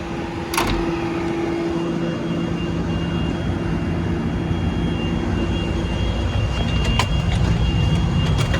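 John Deere 350D LC excavator's diesel engine running steadily, heard from inside the cab along with the cab's air-conditioning blower. A thin high whine joins about three seconds in, and there are a few light clicks.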